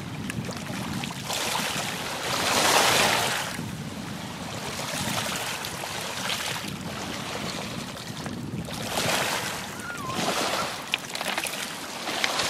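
Small waves washing over a pebble shore in the shallows, swelling and falling about every three to four seconds, with wind rumbling on the microphone.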